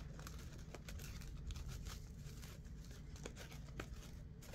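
Faint rustling and crinkling of a fabric ribbon handled by fingers as its loops are shaped into a bow, with a few light ticks.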